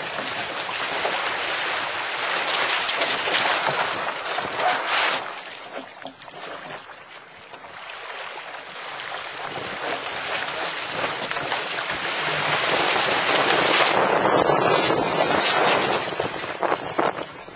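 Wind buffeting the microphone over water rushing along the hull of a small sailboat under way, in gusts that swell and ease, quieter for a few seconds around the middle.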